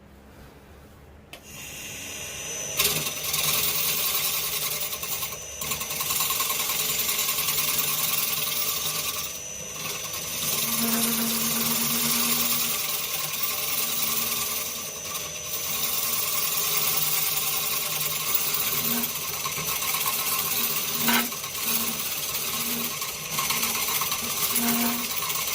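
Electric power tool running against wood, starting about three seconds in with a steady high whine over a dense hiss, easing off briefly a few times.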